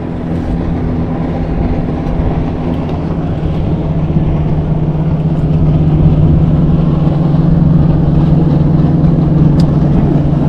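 A boat engine running with a steady low hum that gets louder about halfway through, over a low rumble.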